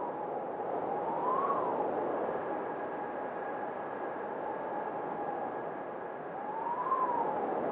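Winter wind howling steadily, with a whistling tone that swells up in pitch and falls back twice as gusts pass. Faint scattered ticks sound through it.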